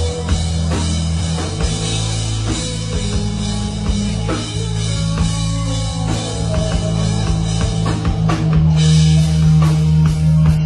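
Rock band playing, with drum kit, guitar and bass; the drums are prominent, and the band gets louder about eight and a half seconds in.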